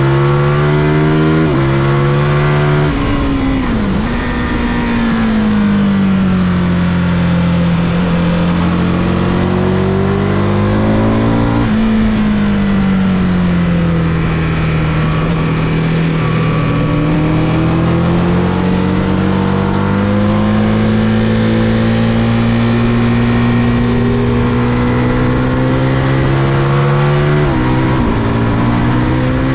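Aprilia race motorcycle engine at full throttle and on the brakes through a lap, recorded on board. Its pitch falls into the corners and climbs down the straights, with sudden steps at the gear changes and rushing noise underneath.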